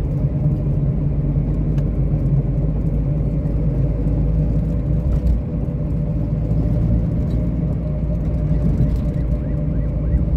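Chevrolet Del Rey's engine and road noise heard from inside the cabin while cruising at a steady speed, a constant low drone.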